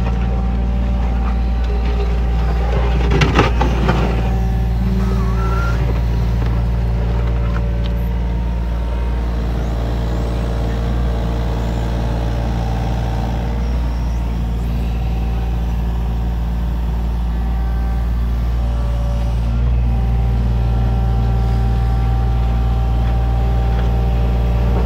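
Takeuchi TB325R mini excavator's diesel engine running steadily under load as the machine digs, with a short burst of clatter about three seconds in.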